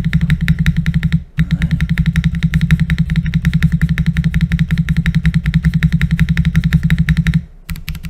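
Mechanical keyboard keys hammered in a very fast, even stream of deep clacks, with a short break about a second in, stopping about seven seconds in.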